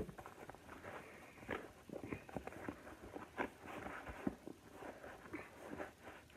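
Faint rustling and light ticks of an Adidas Tubular sneaker and its laces being handled, with one sharper click at the very start.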